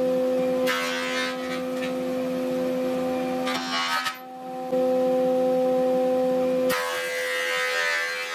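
Stationary thickness planer running with a steady motor hum. Twice, from about a second in and again from about seven seconds, a louder rushing cutting noise comes in as the cutterhead surfaces a board carried on a plywood planer sled. There is a brief break about four seconds in.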